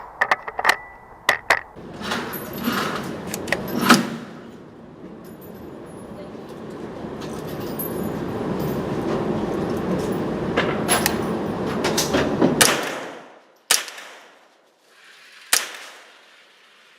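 Sharp metallic clicks and clacks of firearms being handled and fired at a shooting range, several in quick succession at the start and a few more spread through, over a swelling rush of noise that dies away about three-quarters of the way in.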